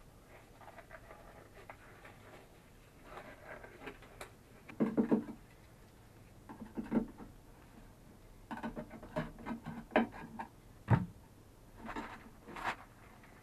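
A gallon can of paint being handled and stirred with a wooden stick: scrapes and taps of the stick against the metal can in short clusters, with one sharp knock near the end.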